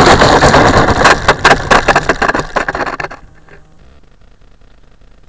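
Loud rushing noise with a run of crackles on the glider's on-board camera microphone, dropping suddenly to a faint hiss about three seconds in.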